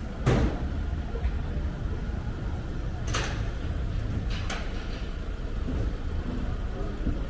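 City street ambience: a steady low rumble of traffic, broken by three short, sharp knocks, the loudest just after the start and two more around three and four and a half seconds in.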